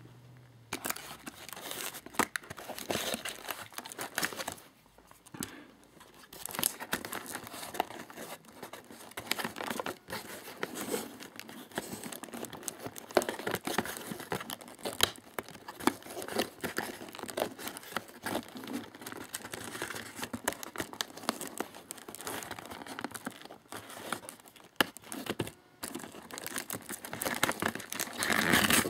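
Cardboard toy packaging and plastic being torn and crinkled by hand: a long run of rips and crackles, with a short pause about five seconds in and a louder burst near the end.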